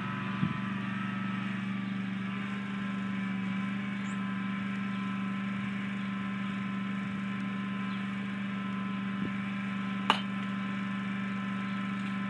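Riding lawn mower engine running steadily in the distance, a constant drone. A single sharp knock sounds about ten seconds in.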